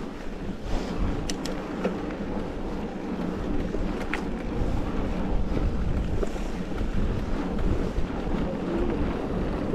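Steady wind rumble on the chest-harness camera's microphone while riding a mountain bike over a rough track, with tyre noise and a few sharp clicks and rattles from the bike.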